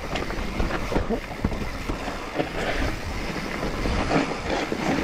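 Mountain bike rattling over a rough trail at speed: tyres rolling on dirt with a steady run of knocks and clatters as it hits roots and rocks.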